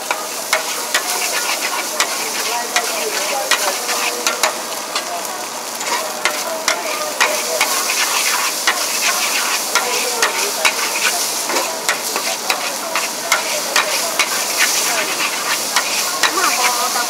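Char kway teow noodles and egg stir-frying in a large wok: a steady hot sizzle with frequent, irregular clinks and scrapes of a metal spatula against the wok.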